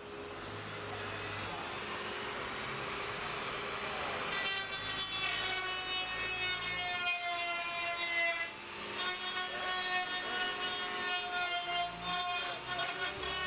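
Inexpensive electric rotary tool with a sanding drum running against the cut edge of an aluminium skin, deburring and smoothing the opening. A grinding rasp at first, then a high motor whine from about four seconds in that wavers and dips briefly twice as the drum is worked along the edge.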